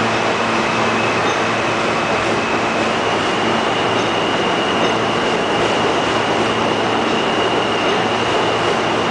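R160B subway train standing at the terminal platform with its doors open. Its onboard equipment gives a steady, loud running noise, with a thin high whine that steps up slightly in pitch about three seconds in.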